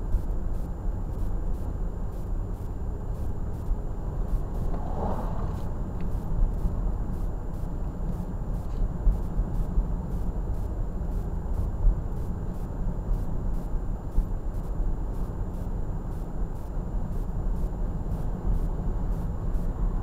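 Steady low rumble of road and engine noise inside a car driving along a street.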